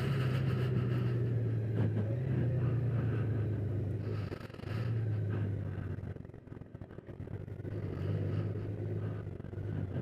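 2019 Honda Gold Wing Tour DCT's flat-six engine running at low speed with a steady low hum. The hum drops briefly about four seconds in, fades from about six to seven and a half seconds, then picks back up before fading again near the end.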